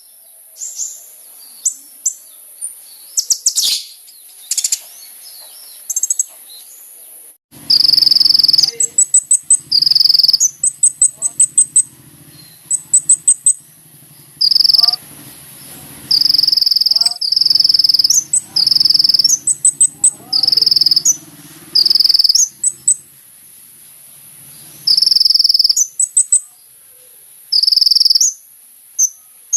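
Kolibri ninja sunbird singing: scattered high chirps, then from about seven seconds in, loud repeated high buzzy trills about a second long, mixed with rapid ticking notes. A steady very high hiss runs behind.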